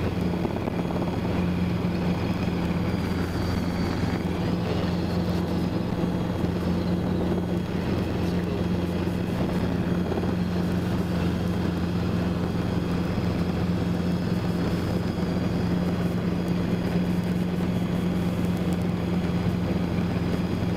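Robinson R22 helicopter's piston engine and rotor running steadily while it hovers low over its landing pad just before setting down, heard from inside the cabin. A steady drone with a faint high whine above it.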